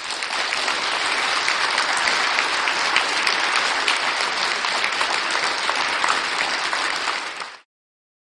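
Stock applause sound effect: a crowd clapping steadily, a dense patter of many hands, which cuts off abruptly near the end.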